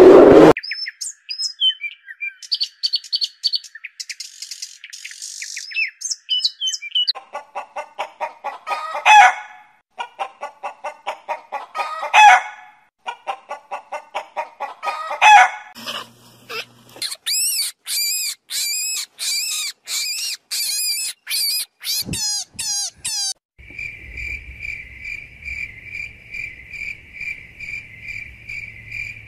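A run of animal calls: high chirping, then chickens clucking in quick runs that each build to a loud call, three times over, then more fast high chirps. In the last six seconds a field cricket chirps steadily in an even, pulsing trill.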